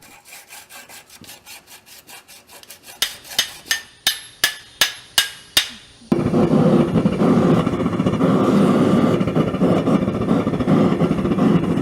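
Faint scraping strokes, then about ten quick hammer blows on steel with a bright metallic ring. About six seconds in it cuts to a loud, steady rushing noise of the forge firing to heat the steel to welding temperature.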